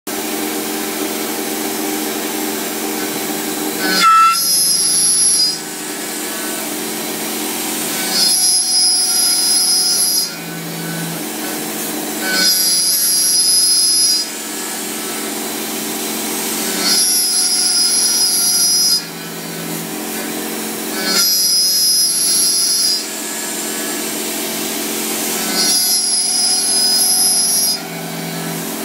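Milling machine's end mill cutting a metal workpiece in repeated passes. About every four seconds the sound rises for a second or two into a louder, high-pitched cutting whine, then drops back to the steady running of the spindle.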